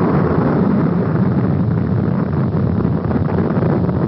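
Rocket engines firing at liftoff: a loud, steady, dense rushing rumble, heaviest in the low range.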